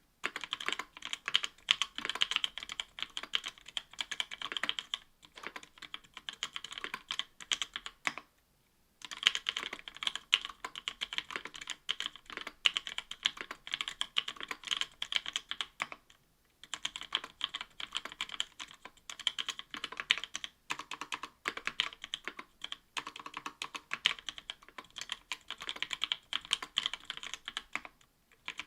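Continuous fast typing on a mechanical keyboard with lubed NovelKeys Cream linear switches in an aluminium plate, under GMK keycaps: dense key clacks in runs, broken by brief pauses a few times.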